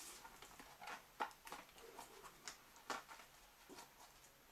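Faint handling noises: soft clicks and taps as a rubber stroller tyre with its inner tube is turned over in the hands, the sharpest about a second in and again near three seconds.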